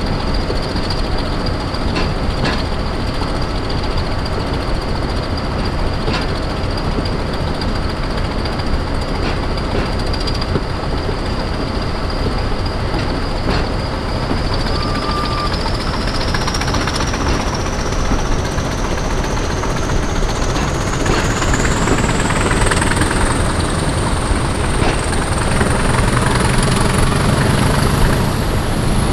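Heritage diesel locomotives working hard, with a steady heavy engine rumble. A thin, high whistle, typical of the Class 20, rises steadily in pitch from about halfway through as the train gathers speed.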